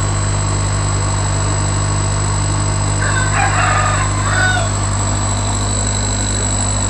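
Steady electric hum of the fish farm's aerator air-pump motors, which push oxygen into the discus tanks, with a thin high whine over it. About three seconds in, a brief animal call, lasting under two seconds, rises over the hum.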